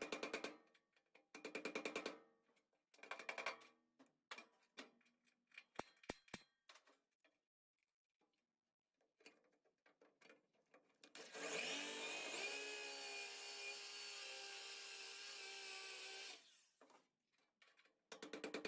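Power tools cutting the sheet-metal floor out of an early Ford Bronco. Short bursts of a fast-stroking cutting tool and a few clicks come first; about eleven seconds in, a rotary tool spins up with a rising whine, runs steadily for about five seconds and stops. The fast-stroking tool starts again near the end.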